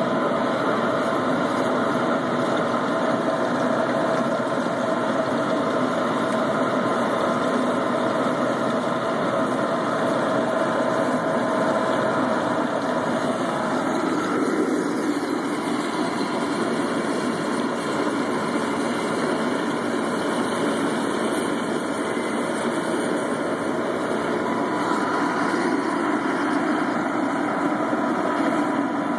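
Homemade waste-oil Turk burner running, its flames and the electric blower feeding it air making a steady roar with a faint steady whine.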